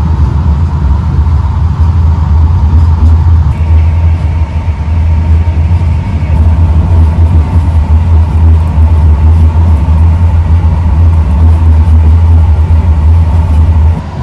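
Loud, steady low rumble of a moving passenger train, heard from inside the carriage, with a faint steady whine above it.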